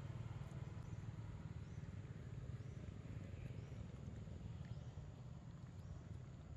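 Faint, steady low rumble of outdoor ambience, with a few soft clicks from a long-tailed macaque eating mango close by.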